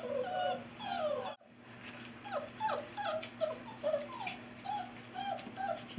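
Alaskan Noble Companion Dog puppies whining: a quick string of short, high, rising and falling whines, several a second, with a brief break about a second and a half in.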